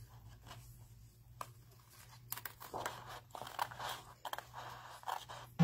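Fine-pointed scissors cutting patterned paper: a scattering of faint, short snips and paper rustles over a steady low hum.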